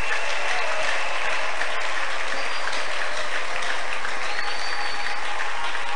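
Congregation applauding steadily, a dense even patter of many hands clapping.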